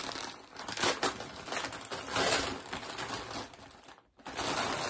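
A gift bag and its wrapping rustling and crinkling as a present is pulled out of it, in uneven swells with a short lull about four seconds in.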